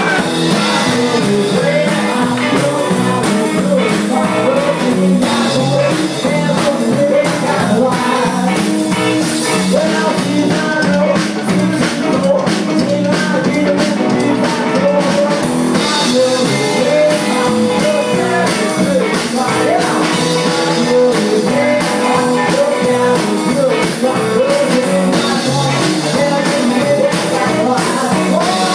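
Live rock and roll from an electric guitar played through a small amp and a stripped-down standing drum kit of snare, floor tom and cymbal, with a steady driving beat.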